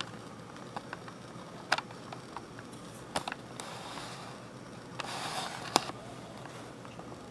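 Kitten sniffing right at the microphone, with short breathy puffs and several sharp clicks and taps as it nuzzles and bumps the camera; the loudest click comes near the end.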